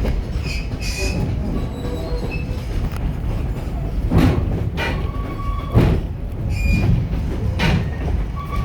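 Railroad passenger coach rolling along the track: a steady low rumble of wheels on rail, with several sharp knocks and clanks from about four seconds in.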